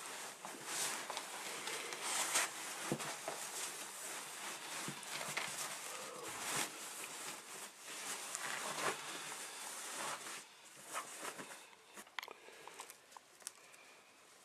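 Crinkling and rustling of plastic packaging being handled: dense, irregular crackles that thin out to a few scattered clicks over the last few seconds.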